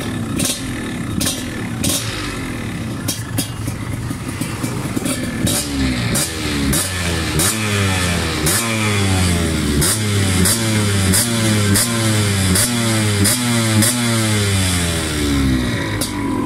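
Motorcycle engine idling, then revved in a run of short, quick throttle blips, one about every 0.7 s, for around ten seconds before it drops back to idle near the end.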